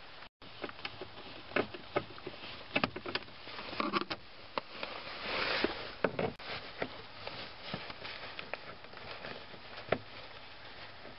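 A #2 Phillips screwdriver turning screws out of a plastic under-dash cover: irregular small clicks and scrapes of metal on plastic, with a brief rustle about five seconds in.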